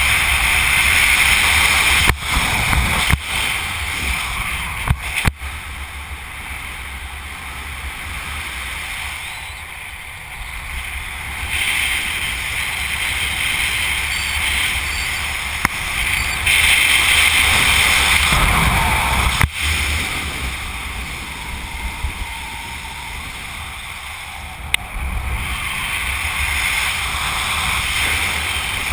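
Wind rushing over a helmet-mounted camera's microphone during a descent under an open parachute, a steady rumble and hiss that swells and eases in gusts, with a few brief clicks.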